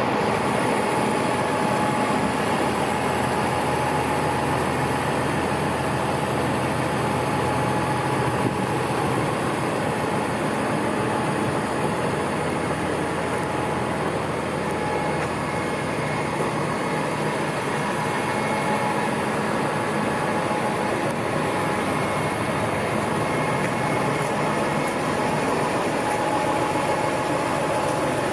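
A 2009 Massey Ferguson 6485 tractor's six-cylinder diesel engine idling steadily, with no revving.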